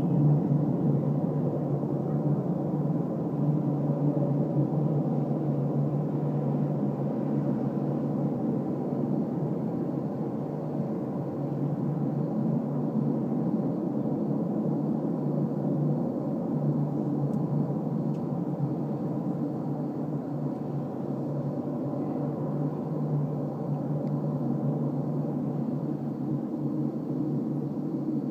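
Unexplained steady mechanical roar with a strong low hum and several higher steady tones, much like a distant jet engine.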